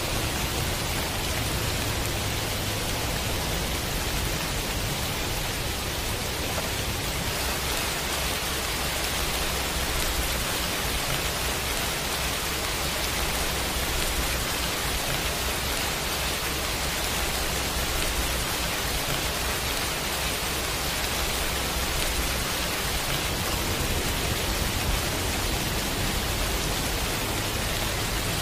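Heavy rain pouring steadily, with a low rumble underneath.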